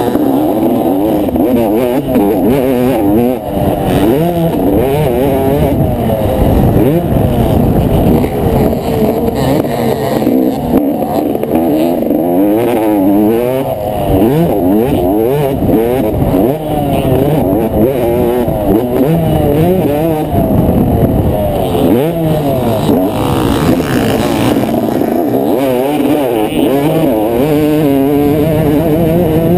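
A Yamaha motocross bike's engine at race pace, heard up close from on the bike, revving up and dropping again and again through the gears and turns.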